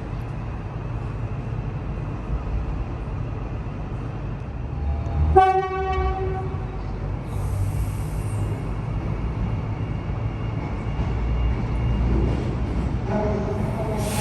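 Suburban electric train running with a steady low rumble, giving one short horn toot about five seconds in. A brief hiss follows a couple of seconds later, and another tone starts up near the end.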